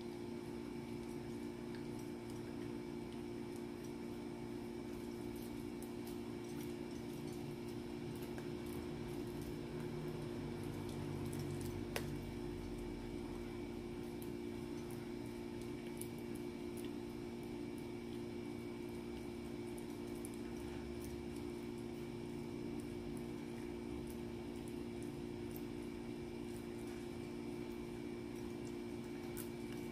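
A small dog gnawing and chewing a stick-like chew treat: faint, scattered wet clicks, with one sharper click about twelve seconds in. Under it runs a steady low hum.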